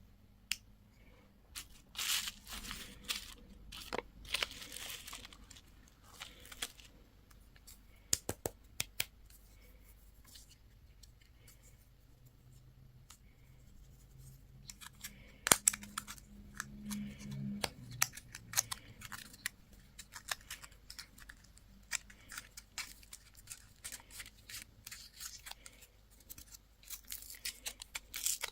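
Candy and toy packaging being torn open and crinkled: plastic wrappers ripped and rustled in scattered bursts, with small clicks and taps between.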